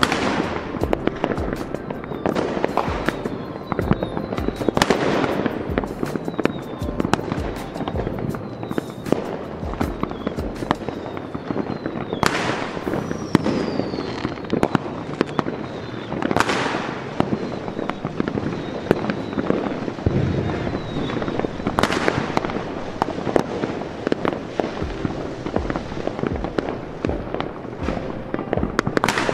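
Large aerial fireworks display: a dense, continuous run of shell bursts and crackling bangs, with several louder booms and a few short falling whistles.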